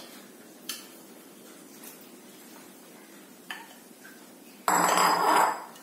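A small vessel knocking lightly against a cooking pot twice as coconut milk is poured into simmering sambar, then a sudden loud noise lasting about a second near the end that stops abruptly.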